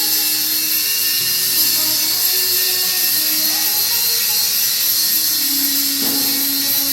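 CO2 (MIG) welding arc running continuously, a steady loud hiss and crackle.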